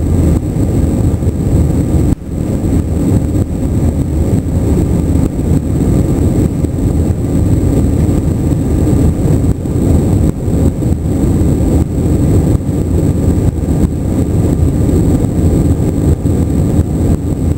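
Airbus A321 cabin noise: a steady, loud roar of the jet engines and airflow, heard from inside the cabin, with a brief dip about two seconds in.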